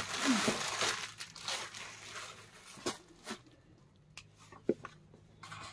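Unstitched suit fabric being handled and spread out: a dense rustle for about the first three seconds, then quieter, with scattered light clicks and taps.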